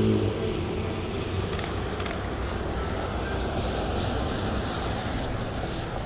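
Street traffic on a wet road: a passing pickup truck's engine fades out in the first moment, leaving a steady traffic hiss.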